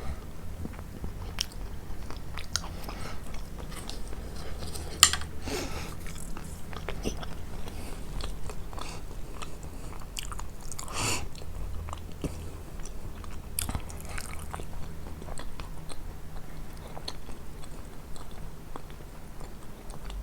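Chewing and biting of kunafa, with scattered crunches of the shredded pastry and a sharp, loud crunch about five seconds in.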